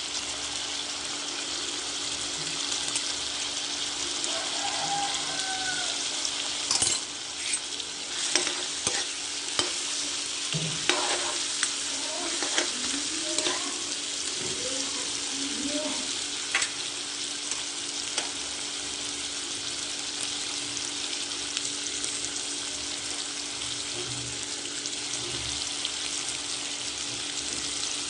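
Food sizzling in hot oil in a kadai, a steady frying hiss, with a spoon knocking and scraping against the pan as it is stirred, mostly in the first half. A steady low hum runs underneath.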